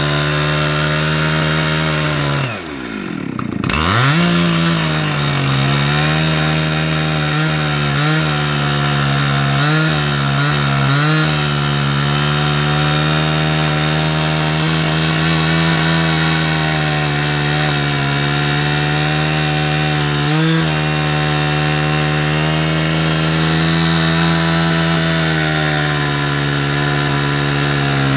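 Husqvarna 372 XP two-stroke chainsaw on an Alaskan mill running at high speed while ripping a slab cut along an eastern red cedar log. The engine speed falls off sharply about three seconds in and picks back up, then holds steady under load.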